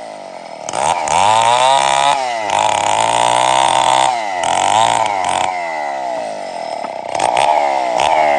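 Stihl two-stroke chainsaw being throttled up to high revs and let back down several times, its pitch sweeping down each time the throttle is released.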